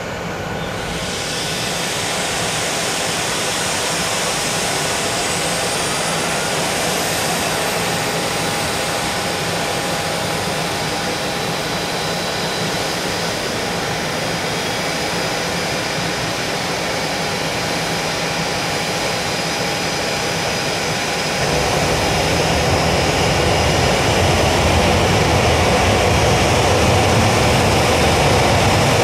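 Boeing 737-800's CFM56-7B jet engine starting: a steady whine and rush of air, with a thin whine rising in pitch as it spools up. About 21 seconds in, a deeper rumble joins and the sound gets louder.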